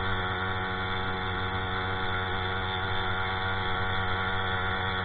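Small 50cc two-stroke piston-valve engine of a motorized bicycle running under way at a steady cruising speed, a steady drone that holds its pitch.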